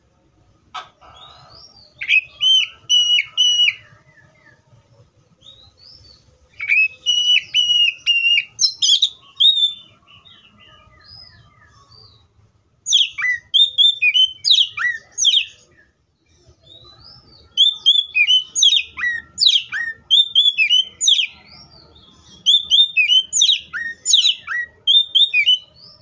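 Oriental magpie-robin singing in five bursts of a few seconds each, with short pauses between: quick runs of repeated clear whistled notes and chirps, some sweeping up high.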